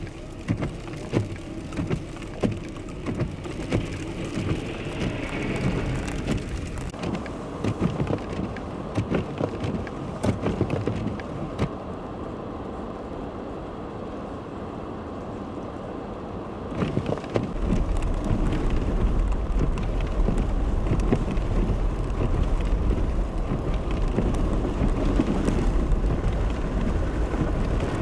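Falling wet snow and sleet ticking irregularly on and near the microphone. From about two-thirds of the way through, a steady low rumble comes in.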